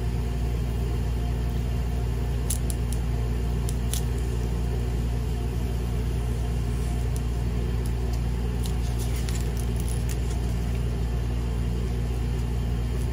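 A steady low hum with a few faint clicks about two and a half to four seconds in.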